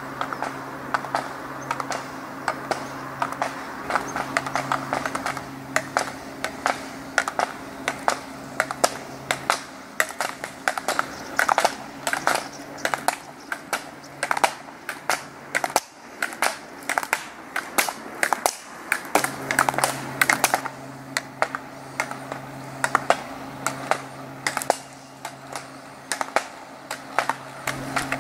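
Inline slalom run through plastic gate poles: a rapid, irregular clatter of sharp clacks as the skaters knock the flexible gates aside and work their ski poles, thickest in the middle stretch.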